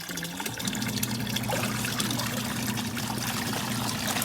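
Eureka EWM-650D twin-tub washing machine running its wash cycle: the motor hums steadily as the pulsator churns the water in the tub. The hum starts about half a second in and stops just before the end.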